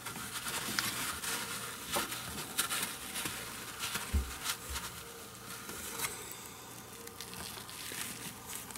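Irregular light scratching and scattered clicks: handling noise from hands working at a car's lower control arm, with a couple of soft low thumps about halfway through.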